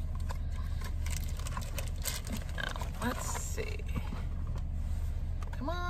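A small cardboard toy box being handled, with scattered clicks, taps and crinkles of packaging and a few short murmurs, over a steady low hum.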